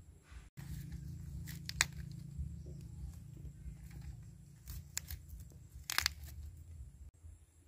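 A large knife cutting florets off a head of fresh cauliflower on a wooden board: a few crisp crunches and snaps as the blade goes through the stems. The loudest comes about two seconds in and another about six seconds in.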